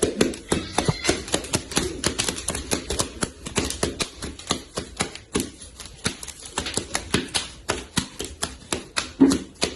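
Rapid, uneven clicking and clattering of hard objects being handled, several sharp taps a second.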